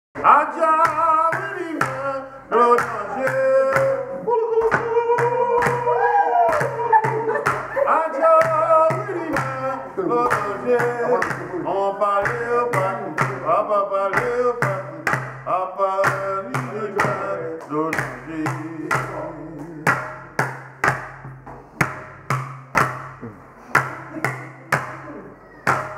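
A chant sung by voices over regular strokes on a calabash water drum, an upturned gourd floating in a bucket of water and struck with thin wooden sticks, giving a low thud with each stroke. About two-thirds of the way through the singing stops, leaving the drum strokes alone at about two a second.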